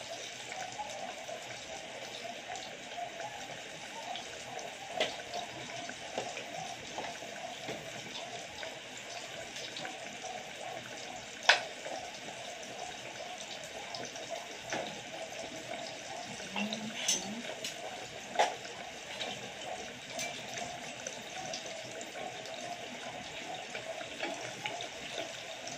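Oil sizzling in a small saucepan as breaded banana peels deep-fry: a steady hiss broken by a few sharp clicks, the loudest about 11 and 18 seconds in.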